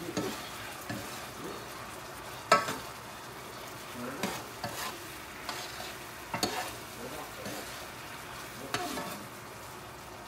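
Honey garlic sauce and chicken pieces sizzling in a nonstick skillet over high heat as the honey reduces and caramelizes. A metal spoon tosses the chicken, clinking and scraping against the pan now and then, sharpest about two and a half seconds in.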